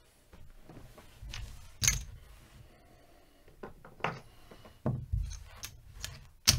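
Casino chips being handled and set down on the craps layout: a few separate clicks and light knocks, the sharpest about two seconds in and again near the end.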